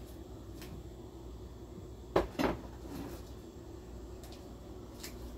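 Two sharp clunks a quarter second apart, about two seconds in, over a steady low hum.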